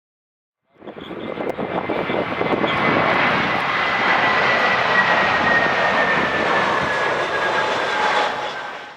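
Jet engines of a narrow-body twin-jet airliner passing on landing approach: a loud roar with a high whine that slowly falls in pitch as it goes by. It fades in about a second in and cuts off suddenly near the end.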